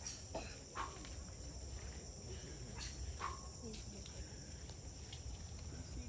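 Steady high-pitched drone of a tropical insect chorus, with a few short sharp calls or clicks about half a second, one second and three seconds in.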